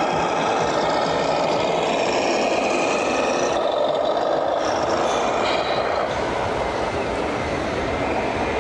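Steady din of a busy exhibition hall at an RC model show, with radio-controlled model trucks driving on the course.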